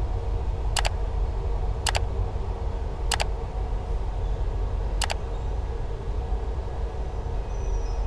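Moving passenger train's steady low rumble, with four sharp double clicks over it in the first five seconds.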